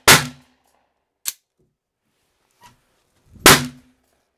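Two sharp gunshots about three and a half seconds apart, the first right at the start, each with a short ringing tail. Between them there is a light, sharp click.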